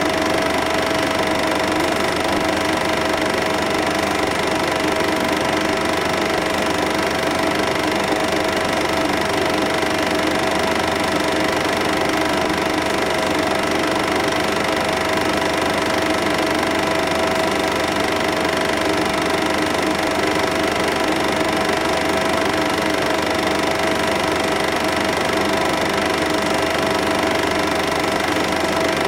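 Cine film projector running steadily: an even mechanical whirr with a constant hum.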